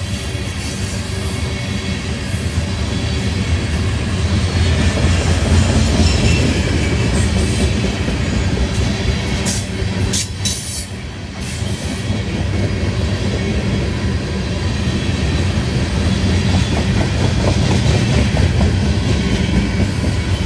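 Covered hopper cars of a grain train rolling past at close range: a steady rumble of steel wheels on rail with a rhythmic clickety-clack over the rail joints.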